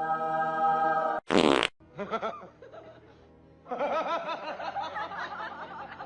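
A held pitched tone, then a short loud buzzy fart-like noise about a second and a half in, followed by a wavering pitched sound.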